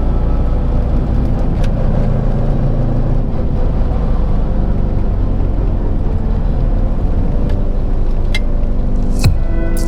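Classic Mini's A-series engine, fitted with a Weber 40 carburettor, running steadily, heard from inside the cabin. A sharp click comes near the end.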